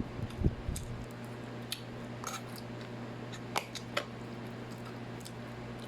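A person eating: chewing in the first second, then a few light clicks and taps, like a spoon or fork on a plate, over a steady hum.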